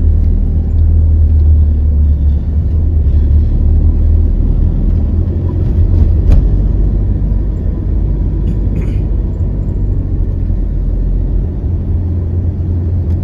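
Car driving along a road, heard from inside the cabin: a steady, loud low rumble of engine and tyres, with a single brief click about six seconds in.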